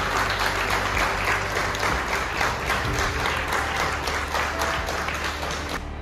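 Audience applauding, a dense crowd of hand claps that slowly dies down and cuts off near the end.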